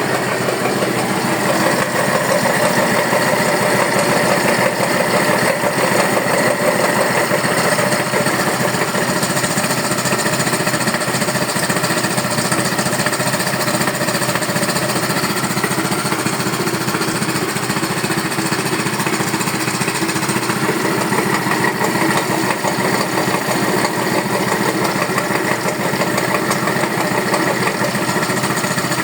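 Yamaha Neo 125 scooter's single-cylinder engine running steadily with a fast, even clatter through it, a noise the owner takes as a sign that something is wrong with the engine.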